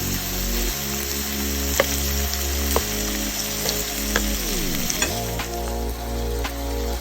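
Meat and vegetables sizzling on a tabletop grill: a steady frying hiss, with a few sharp clicks now and then.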